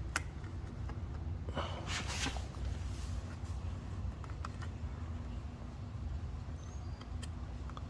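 Faint clicks and a brief scraping rustle of plastic parts being worked loose from a motorcycle's speedometer housing by hand, over a low steady hum.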